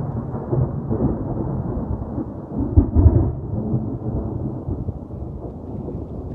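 Thunder rumbling through a storm, swelling to its loudest about halfway through before rolling on.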